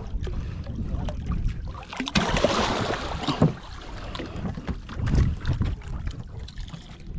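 A hooked barracuda splashing at the surface beside a small wooden outrigger boat as it is hauled aboard, with a heavier burst of splashing about two seconds in. Scattered knocks and thumps against the boat come through the splashing.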